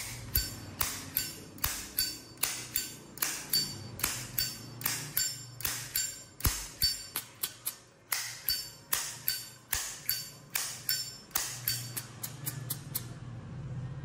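Red powder-coated Zippo lighter's lid being flicked open and snapped shut over and over, each stroke a sharp metallic clink with a brief ring. The clinks come about three a second, quicken near the end, then stop.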